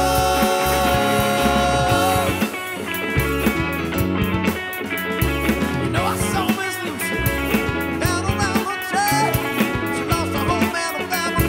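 Rock band playing: a held chord ends about two seconds in, then electric guitar and drums carry the song on with keyboard.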